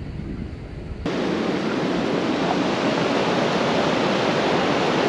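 Rushing water of a river running over rapids: a steady, even hiss of flowing water that comes in suddenly about a second in, after a low rumble.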